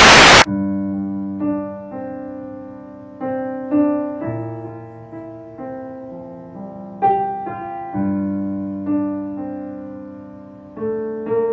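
A short, loud burst of hiss-like noise cuts off about half a second in, then slow piano chords follow, each struck and left to fade, a new one about every second.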